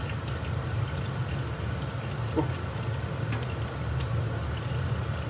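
Chinese cleaver slicing a peeled luffa into thin rounds on a wooden cutting board: a run of irregular quick knife taps on the board, over a steady low hum.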